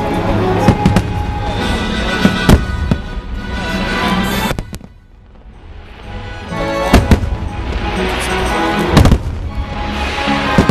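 Fireworks banging and crackling over loud show music played through the park's speakers. About halfway through, the music and bursts drop away for a second or two, then both come back with a fresh volley of bangs.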